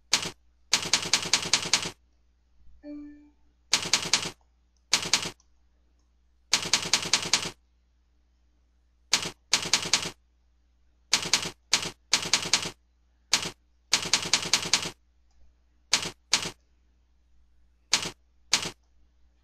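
Keystrokes typing in quick bursts of several sharp clicks each, with short pauses between the bursts, as text is typed into a code editor.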